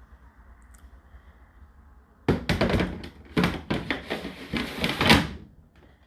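Loud plastic clunks and knocks from a condenser tumble dryer's parts being handled, starting about two seconds in and lasting about three seconds.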